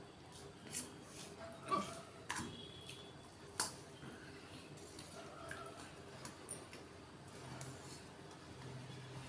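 A person hiccuping: several short, sudden hiccups in the first four seconds, then only faint small sounds.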